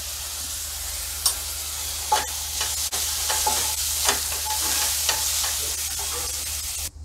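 Oil sizzling in a ceramic-coated kadhai as turmeric fries with garlic-chilli paste and cumin, while a wooden spatula stirs and scrapes the pan with soft knocks from about a second in. The sizzle cuts off suddenly at the very end.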